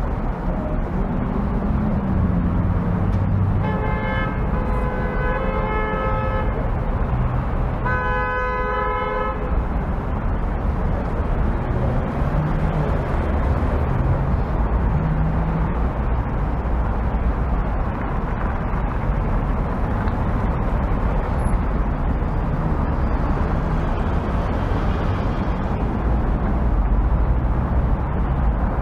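City street traffic running steadily, with a vehicle horn honking twice: a long blast about four seconds in and a shorter one about eight seconds in.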